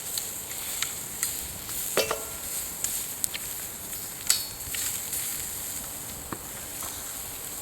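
Meat grilling over a crackling wood fire: a steady high sizzling hiss with scattered sharp pops and clicks, the loudest about two and four seconds in.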